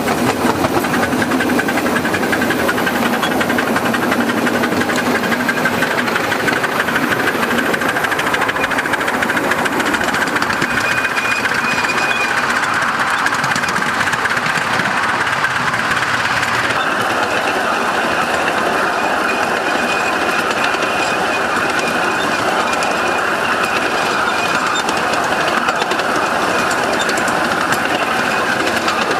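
Miniature steam locomotive running along its track, heard close up from aboard the train, with a steady dense noise of the engine and the wheels on the rails. The sound shifts abruptly about two-thirds of the way through.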